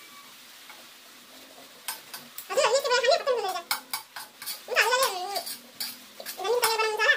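An animal calling three times, each call about a second long with a wavering pitch, the first coming about two and a half seconds in. Between and under the calls a metal spoon clinks and scrapes on a steel plate.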